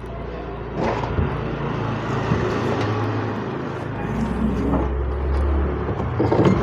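Steady motor-vehicle noise with a low hum that grows stronger about four seconds in.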